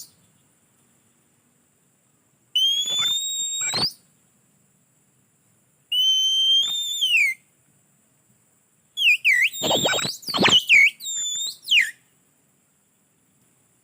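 Oriental magpie-robin (kacer) singing: three loud, clear whistled phrases with silence between them. The first two are about a second and a half each, each a held note that slides up or down. The third, about nine seconds in, is a longer run of quick sweeping notes that lasts about three seconds.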